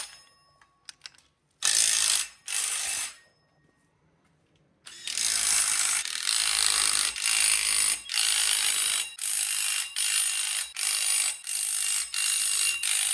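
Ratchet wrench being cranked in quick repeated strokes, a burst of clicking on each stroke, about a dozen in a row, after two shorter bursts near the start.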